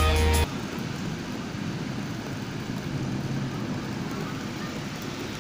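Background music cuts off about half a second in, leaving a steady outdoor noise over a rain-wet street, with no distinct events standing out.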